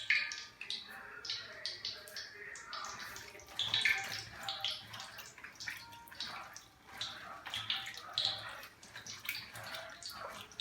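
Cut raw yam pieces being tossed and mixed with curry powder and sugar, giving irregular wet clattering and rustling.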